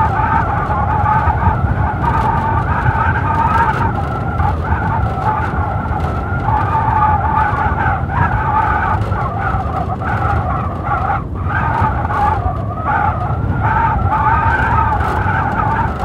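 Blizzard wind howling steadily, with a whistling pitch that wavers up and down over a low rumble of gusts. It eases briefly about two-thirds of the way through.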